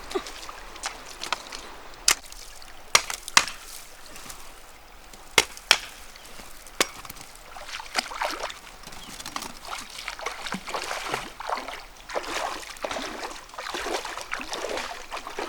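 A string of about nine sharp knocks, irregularly spaced, over the first seven seconds, with water splashing and trickling that grows busier in the second half.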